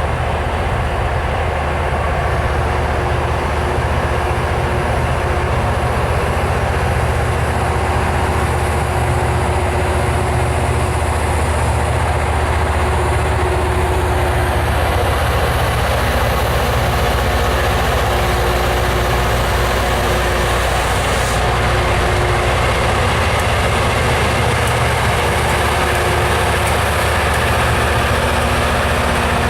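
Heavy diesel engines of a Loram RG400-series rail grinder idling steadily, a deep continuous hum with a few faint steady tones over it.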